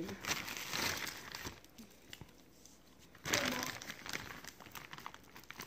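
Crinkly plastic rustling and crackling as it is handled, louder for about the first second, quieter in the middle, then a louder burst a little past three seconds in.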